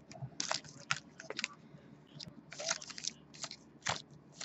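Baseball trading cards being handled and slid against one another, a run of short, irregular rustles and snaps.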